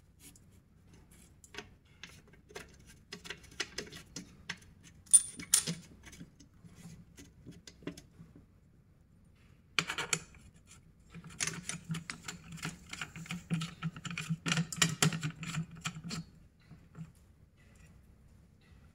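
Handling noises from small parts being worked by hand. First come scattered small clicks and taps, including a sharp click with a brief high ring about five seconds in. Then there is a dense stretch of rustling and scraping from about eleven to sixteen seconds.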